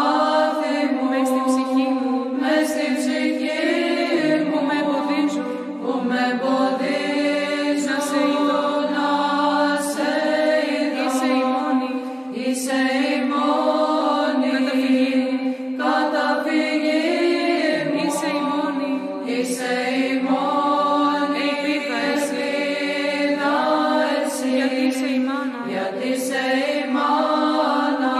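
Byzantine chant: voices singing a slow, melismatic Greek hymn over a held low drone (ison) that shifts pitch a few times.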